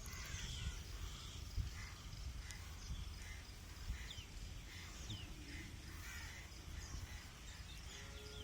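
Faint outdoor ambience with small birds chirping repeatedly over a low rumble.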